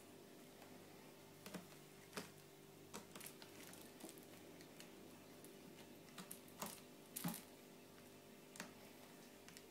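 Faint, scattered taps and scuffs as a Maine Coon cat bats and grabs a toy mouse hanging from a sisal-wrapped cat tree, over a low steady hum of room tone.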